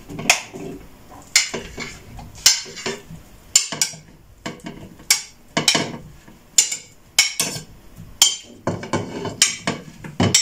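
Chopped avocado and banana pieces being scraped off a plate into a plastic blender jar: a string of irregular sharp clicks and knocks from the plate and the jar.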